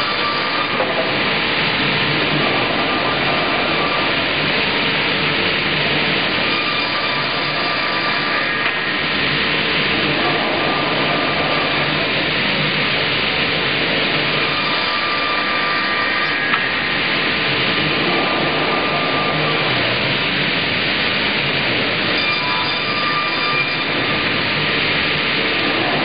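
Double-bladed automated circular sawmill running: its two circular saw blades spin and cut squared timber as it is fed through, giving a steady, even noise.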